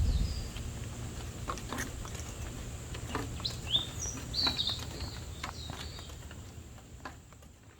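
Wild birds calling with short chirps and quick whistled notes, over a low rumble; it all fades out near the end.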